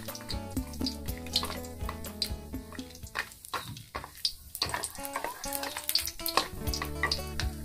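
Background music over whole star anise and a cinnamon stick sizzling in hot oil in a wok, with a wooden spatula stirring and scraping against the pan.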